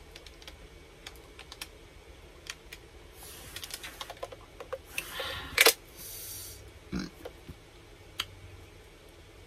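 Close-miked eating and food-handling sounds: scattered small clicks and crackles, with a louder burst of crackling about five and a half seconds in and a dull knock about seven seconds in.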